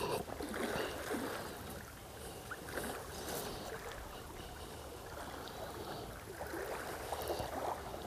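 Small waves lapping gently at the water's edge in an irregular, soft wash.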